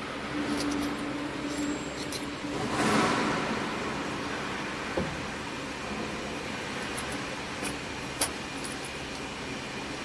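Steady workshop machinery noise, with a few light sharp clicks and knocks as bobbins are handled and fitted onto the carriers of a braiding machine.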